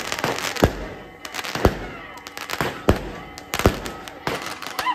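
Fireworks going off in the air, a dozen or so sharp bangs at uneven spacing over continuous crackling.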